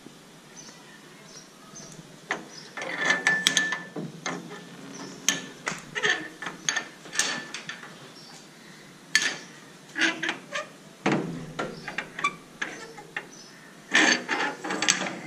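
Wrought-iron gate being opened and shut: metal clanks, rattles and knocks from the gate and its bolt latch in several bursts, with a brief squeal about three seconds in. The loudest clatter comes near the end, as the latch is worked by hand.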